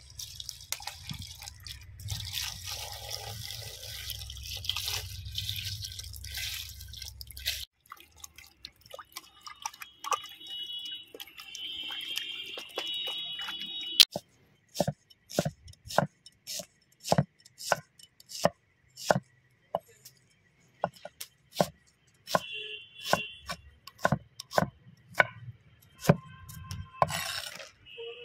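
Water poured from a large plastic jug splashes onto tomatoes and onions in a steel pot for the first several seconds. About halfway through, a steel cleaver starts chopping onion on a wooden board: sharp knocks, about one to two a second.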